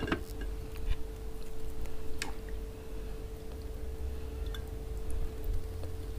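Hands pulling apart a piece of stewed lamb in okra sauce: soft wet squishes with a few sharp clicks, near the start, about a second in and around two seconds in, over a steady low hum.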